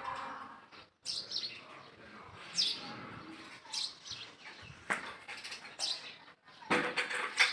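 Short, high-pitched animal chirps, about five, each sweeping down in pitch and coming roughly a second apart, over faint background noise.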